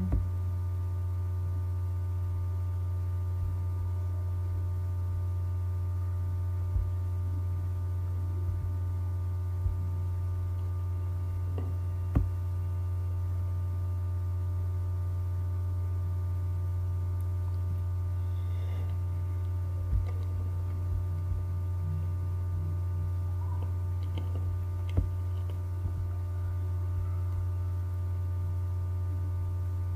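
Steady low electrical hum with fainter steady tones above it, broken by a few sharp, scattered computer-mouse clicks.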